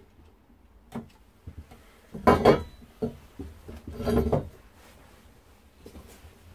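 Copper pipe knocking and clinking against a wooden workbench as a soldered pipe frame is handled: a click about a second in, then two louder bouts of knocks at about two and a quarter and four seconds in.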